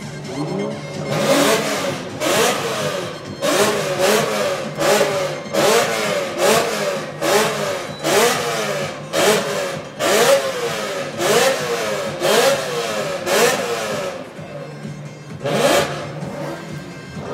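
Car engine revved hard in quick repeated blips, over a dozen in a row at about one a second, each rising and dropping back in pitch, then a pause and one last blip near the end.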